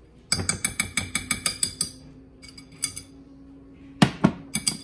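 Metal spoon clinking against a glass mixing bowl of cheese sauce as it is stirred, in a fast run of about eight clinks a second for a second and a half. Two louder knocks about four seconds in and a few more clinks near the end as the spoon scoops sauce.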